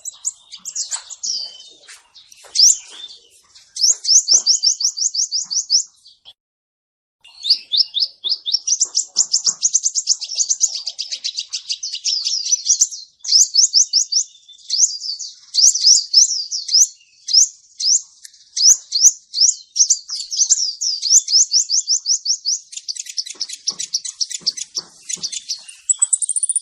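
Male crimson sunbird ('kolibri ninja') singing: long, rapid, high-pitched trills of short sweeping notes, broken by a pause of about a second near six seconds in.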